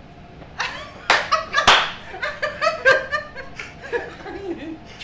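People talking and laughing, with two sharp slaps a little after a second in, the loudest sounds here.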